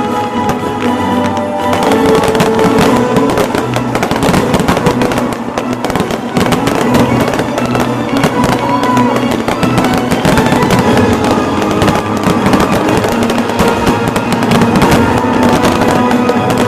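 Rapid fireworks explosions and crackle over loud show music, the bursts starting about two seconds in and coming thick and fast.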